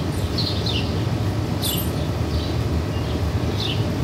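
Steady low outdoor rumble with a bird chirping over it: several short, high, falling chirps.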